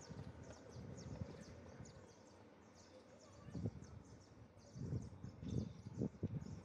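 Faint background of quick high chirps repeating throughout, with a few low muffled bumps about halfway through and again in the last two seconds.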